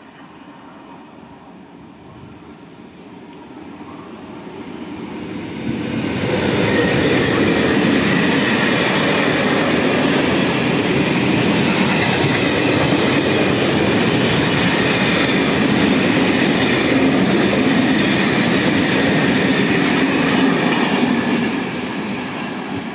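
A freight train of covered sliding-wall H wagons, hauled by an FS E652 electric locomotive, runs through the station on the near track. Its sound builds over the first six seconds, stays loud and steady for about fifteen seconds as the wagons pass, and fades near the end as the tail moves away.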